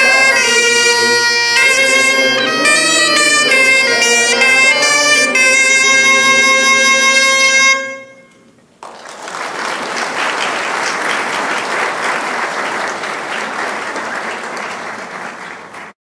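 Breton bombarde and bagpipe playing a melody over the bagpipe's steady drone; the tune ends about eight seconds in. A second later audience applause starts and runs until it cuts off abruptly.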